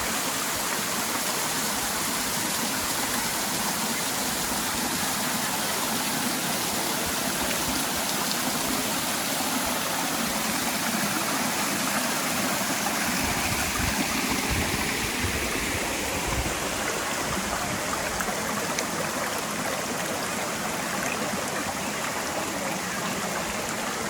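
Steady rush of a waterfall and its stream: an even wash of falling, splashing water, with a low dry-season flow.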